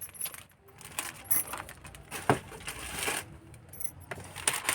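Plastic packaging rustling and crinkling with light metallic clicks and clinks as gold-plated jewellery pieces are handled, one sharper click about halfway through.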